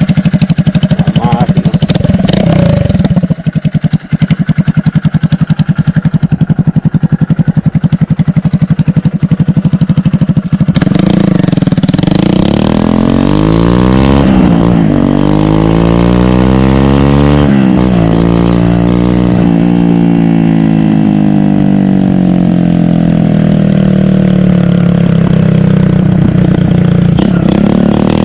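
Loud exhaust of a 150 cc single-cylinder motorcycle engine: for about ten seconds it runs with rapid, hard, even pulses, then it is revved up and down several times and settles into a steady higher speed that slowly drops in pitch.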